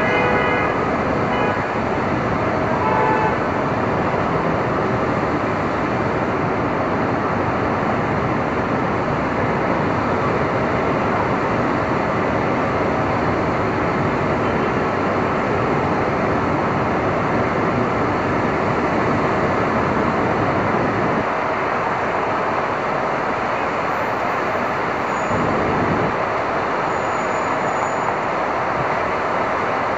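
Manhattan street traffic in stormy weather: a steady, dense wash of vehicle and roadway noise. A few brief high tones sound in the first three seconds, and the low rumble thins for a few seconds past the twenty-second mark.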